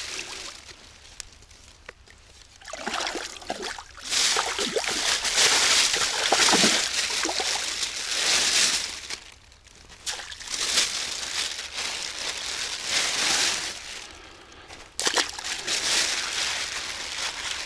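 Shallow water sloshing and splashing as fish are tipped from a plastic bag into a keepnet, in several long bursts with short lulls between them.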